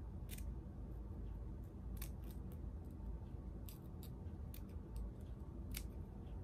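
Scissors snipping through the lace front of a synthetic wig: a series of short, sharp snips at irregular intervals.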